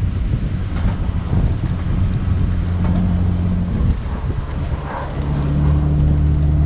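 Off-road 4x4's engine running as it climbs a rocky dirt track, over a rumble of tyres on gravel. The engine note shifts about halfway through and then holds steady.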